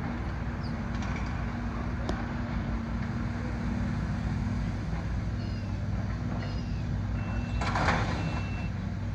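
Kobelco hydraulic excavator's diesel engine running steadily during demolition work. About three-quarters of the way through comes a short, loud burst of crashing debris. Near the end a reversing alarm beeps in long, even beeps.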